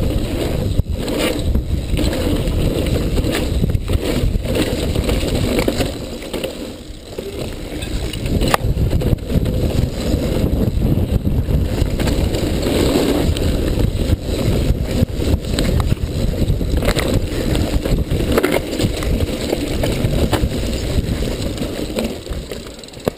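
Mountain bike descending a dirt and gravel downhill trail at speed: wind buffeting the microphone and tyres crunching over the loose surface, with the bike knocking and rattling over bumps. The rush eases briefly about six seconds in, then builds again.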